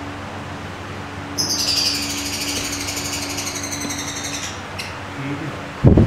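Lovebird chattering: a rapid, shrill run of calls lasting about three seconds, starting about a second and a half in. A loud low thump just before the end.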